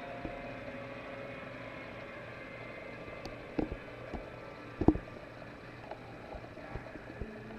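Steady hiss and hum of a television's sound picked up by a camera microphone in the room, with a few sharp knocks about three and a half and five seconds in.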